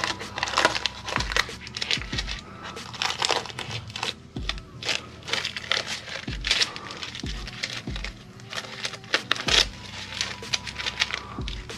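Plastic sheeting and masking tape crinkling and rustling as they are handled and peeled, with irregular crackles and several dull low thumps.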